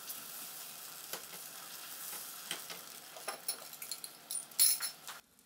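Egg omelette mixed with grated coconut, shallots and green chilli sizzling in coconut oil in a frying pan: a steady hiss with scattered crackles and a louder burst of crackling about four and a half seconds in. The sizzle stops abruptly near the end.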